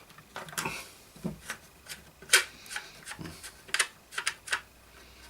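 Irregular sharp clicks, knocks and scrapes of hands working a retaining pin out of a radio's case to free the chassis. The sharpest knock comes about two seconds in, and a quick run of clicks follows a little later.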